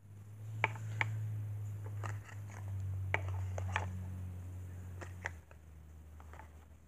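Close handling noise: a low rumble with about seven sharp clicks scattered through it, the rumble dropping away about five seconds in.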